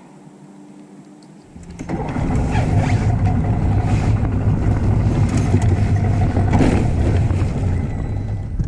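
A boat's outboard motor starts up about a second and a half in, then runs steadily and loudly.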